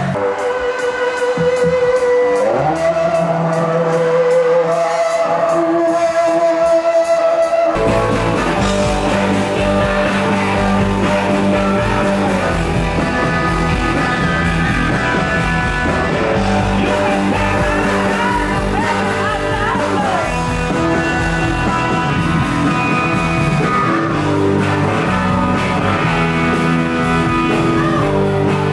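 Rock band playing live, with a male lead vocal. Held sung notes over sparse backing open the passage, and the full band with electric guitar comes in about eight seconds in.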